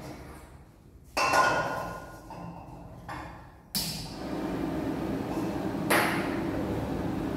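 A metal wok clanks and rings about a second in, followed by a smaller knock. Then the commercial gas range burner under it is lit, and its flame rushes steadily, with one more sharp clank of the wok partway through.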